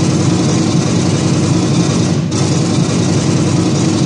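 A loud, steady engine-like rumble, a recorded sound effect on the mime's soundtrack.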